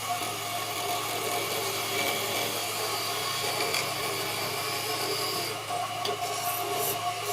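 A wood lathe running with a steady motor hum while a tool scrapes the spinning wood, a continuous rubbing, rasping sound.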